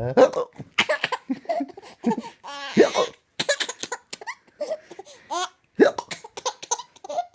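A young child laughing in short, choppy bursts, with hiccups breaking in among the laughs.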